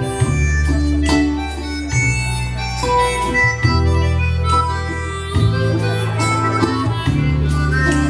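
Live band playing an instrumental passage: a harmonica carries the melody over electronic keyboard bass and chords and a strummed acoustic guitar.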